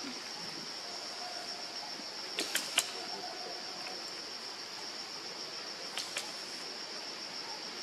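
Steady high-pitched drone of insects such as crickets or cicadas, broken by a few sharp clicks around two and a half to three seconds in and twice more about six seconds in.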